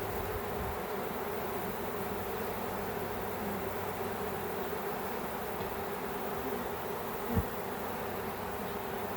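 A swarm of honey bees buzzing steadily as they fly around and move into a new hive. A single short, low thump comes about seven seconds in.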